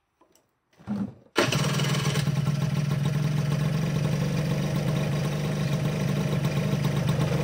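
Honda Super Dio ZX (AF28) scooter's 50cc two-stroke engine cranked briefly on the electric starter and catching first time about a second and a half in, then running steadily at idle, a little louder for its first second. Its carburetor is freshly cleaned and re-jetted.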